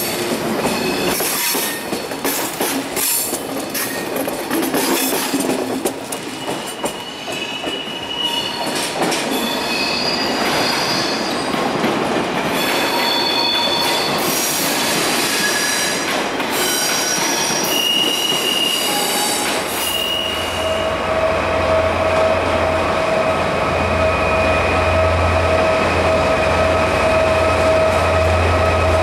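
Railway train running on track: rapid clicks from the wheels with short, high wheel squeals. About twenty seconds in, a steady low hum and a steady whine set in and grow slightly louder.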